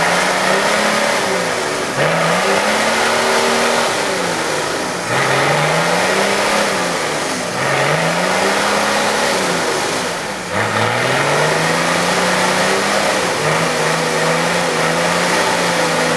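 Off-road 4x4's engine revving hard again and again, each rev rising then falling in pitch about every two and a half seconds, then held steadier near the end. A constant rushing noise runs underneath. The vehicle is churning in deep mud and water and barely moving.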